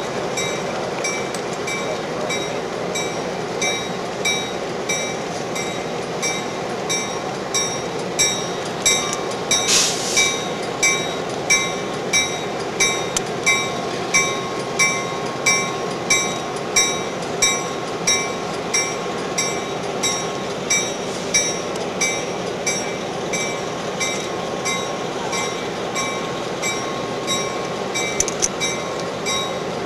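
Diesel locomotive running with its bell ringing at about three strikes every two seconds over the steady engine noise. There is a short hiss of air about ten seconds in.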